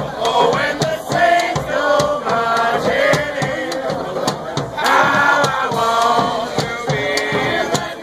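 Brass band music: a bass drum with a mounted cymbal keeps a steady beat while the band members sing together, with a sousaphone and horns joining in.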